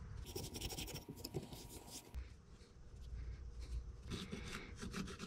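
Fingers pressing and rubbing damp green sand into a plaster core box: a faint, gritty scratching, busiest in the first two seconds, with scattered light clicks near the end.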